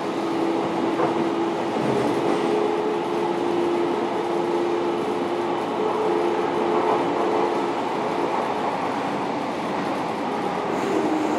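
Fukuoka City Subway 1000N series electric train running, heard from inside the car: a steady rumble of wheels on rail with a steady two-note whine. Near the end the whine drops to a lower note.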